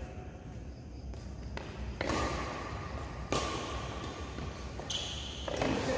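Badminton rackets striking a shuttlecock in a doubles rally: about four sharp hits, a second or so apart, with a brief high squeak near the end from shoes on the court floor.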